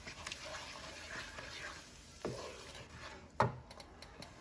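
A utensil stirring thick shiro in a pot, scraping against the pot with a few knocks, the loudest about three and a half seconds in, as boiling water is worked in to thin the stew.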